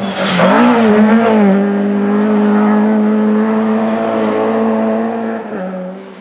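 Rally car passing at speed on a snow stage: the engine's pitch wavers through the corner with a loud rush of noise, then holds steady at high revs as the car pulls away, fading and dropping in pitch near the end.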